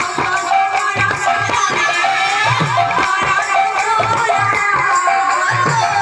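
Odia kirtan music: a woman singing a wavering devotional melody over drum beats and the steady jingle and clash of hand cymbals.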